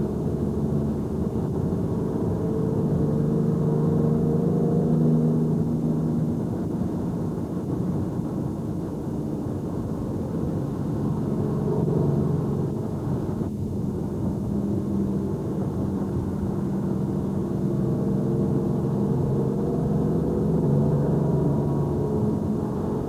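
Engine and tyre noise of a moving road vehicle on a wet road, heard from inside a car; the engine note rises and falls with speed.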